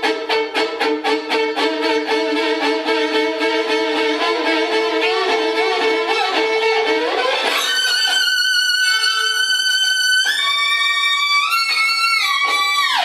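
Violin playing. First come quick repeated bow strokes, about four a second, over held notes. About seven and a half seconds in it moves to high, steady held notes that step up in pitch and slide twice near the end, then cut off abruptly.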